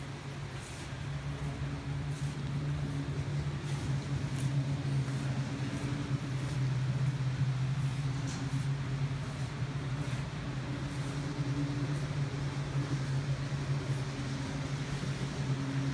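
HO scale Pennsylvania Railroad passenger train model running along the layout track: a steady hum and rumble from its motor and wheels, with faint clicks, getting a little louder a few seconds in.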